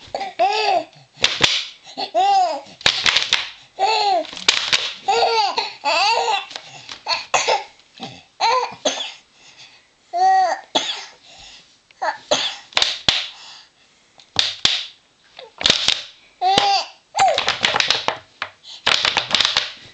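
A plastic Coke bottle squeezed again and again, crackling in short sharp strokes, and a baby giggling and squealing in reply. The laughs come mostly in the first half, with one more a little past the middle.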